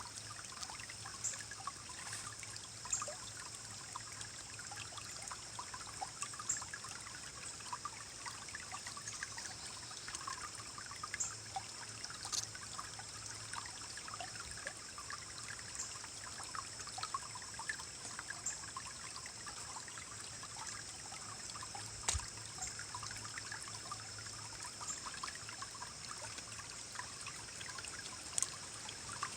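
Small forest stream rippling and churning over rocks: a steady burble of running water with many small splashes and drips.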